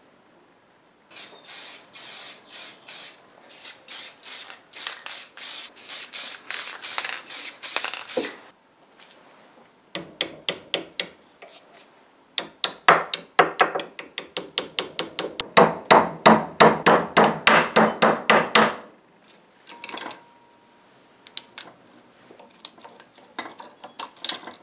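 Hand work on steel parts: a run of rhythmic scraping strokes, then a fast series of hammer blows on metal, about four or five a second, followed by a few scattered knocks.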